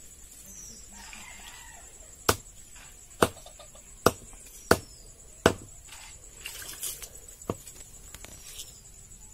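Cleaver chopping raw chicken on a wooden block: five sharp chops about a second apart, then one more a couple of seconds later, over a steady high-pitched whine.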